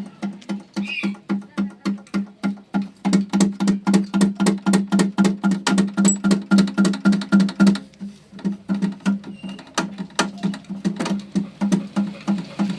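Background music: a plucked string instrument, guitar-like, playing a fast, even rhythm of about five notes a second over one steady low note.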